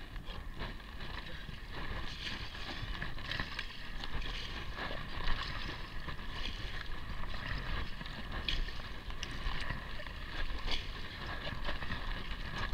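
Kayak paddling on choppy sea: irregular splashes of the paddle blade and water slapping the hull, over a steady low rumble of wind on the microphone.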